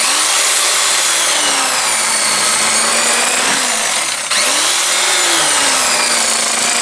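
Corded electric carving knife running as its blades saw through a rack of cooked pork spareribs, a steady buzz whose pitch wavers as it cuts, with a brief change about four seconds in.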